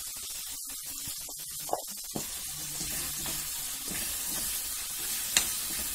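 Chopped potato, onion and tomato frying in plenty of coconut oil in a pan, sizzling steadily. A steel spoon stirring them clicks against the pan a few times, sharpest near the end.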